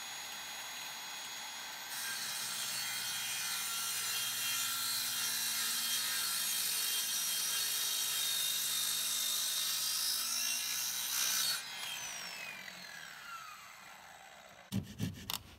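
Ryobi miter saw cutting a 45-degree angle through a 2x4: the motor whine grows louder as the blade bites into the wood about two seconds in and cuts steadily for about ten seconds, then the trigger is released and the whine falls away as the blade spins down. A few knocks near the end.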